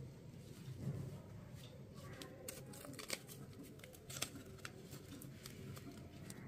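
Non-woven fabric being gathered and tied off by hand: soft rustling with a scatter of small crisp clicks, busiest through the middle.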